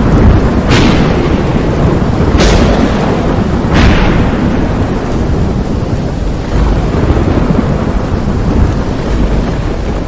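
Thunderstorm sound effect: heavy rain with a deep rumble of thunder, and three sharp cracks in the first four seconds.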